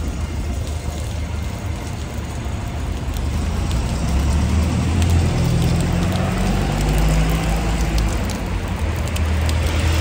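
Rain and meltwater running down inside a metal downpipe and out of its outlet: a steady low rumble that grows louder about four seconds in, with scattered dripping ticks.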